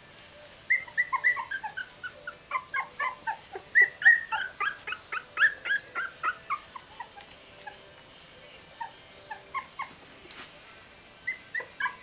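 Young puppies whimpering and squeaking: many short, high, falling calls in quick succession starting about a second in, thinning out to occasional whimpers in the second half.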